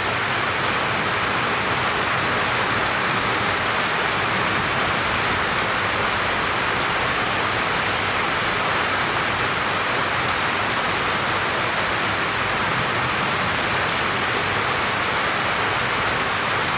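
Steady rain falling on banana and mango leaves, heard from beneath a roof, an even hiss that holds at one level throughout.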